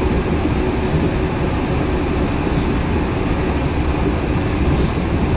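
Yurikamome 7300 series rubber-tyred automated train running at speed, heard from inside the front car: a steady low rumble of tyres on the concrete guideway with a constant hum, and a few faint rattling clicks.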